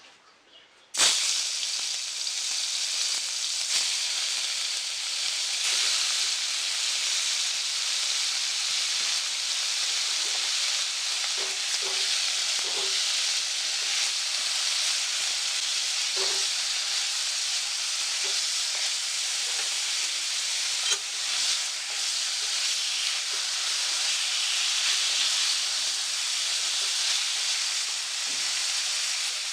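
Paneer cubes sizzling in hot mustard oil in a kadhai, a steady frying hiss that starts suddenly about a second in, with a few light knocks of stirring. The paneer is being lightly fried.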